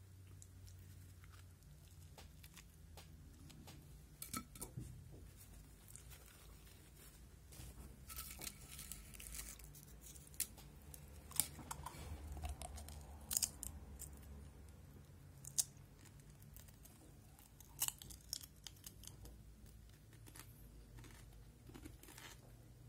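Potato chips being bitten and chewed, a few irregular crisp crunches and crackles, with the sharpest ones clustered in the middle stretch.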